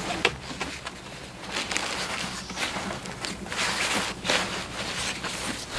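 Deflated Klim Atlas avalanche airbag's fabric rustling irregularly as it is folded in by hand.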